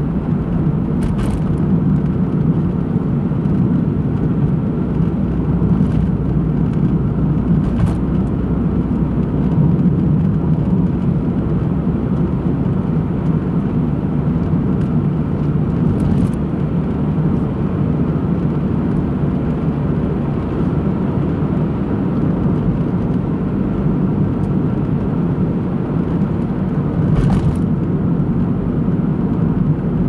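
Car engine and tyre noise heard from inside the cabin while driving at a steady pace, a constant low rumble with a handful of brief clicks or knocks now and then.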